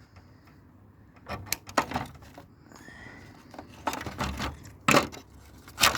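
Clattering and knocking of small metal and plastic parts from a scrap tower fan being handled and dropped, with about half a dozen sharp knocks from about a second in and a brief squeak in the middle.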